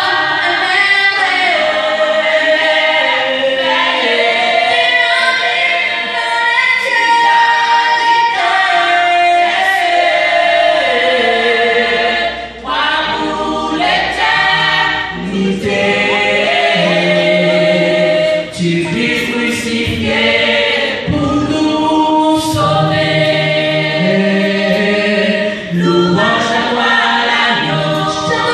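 Female vocal group singing gospel a cappella in close harmony, a lead voice on microphone over the others, with no instruments. A lower harmony part comes in about halfway through.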